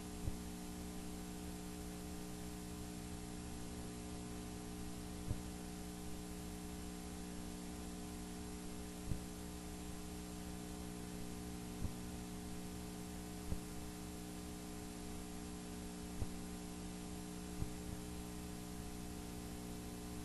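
Steady electrical mains hum from the sewer inspection camera system, with a faint soft knock every few seconds.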